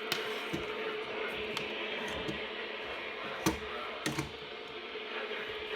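Steady radio static hiss with a faint steady hum, broken by scattered sharp clicks and knocks, the loudest about three and a half seconds in.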